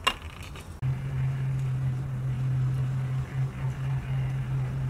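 A steady low hum of a running motor, starting abruptly about a second in, after a brief sharp click at the very start.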